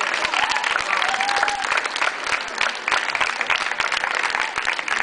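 A group applauding steadily, with a few voices over the clapping.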